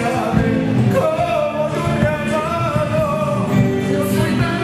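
Argentine folk band playing a dance song, with a sung vocal line over the instruments.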